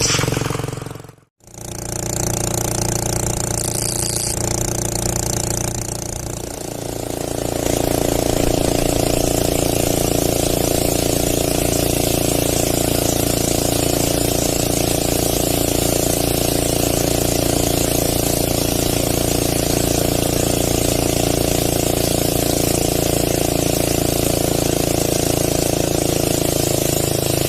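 Boat engine running steadily under way, with rushing wind and water hiss. It cuts out for a moment about a second in, then gets louder about seven seconds in.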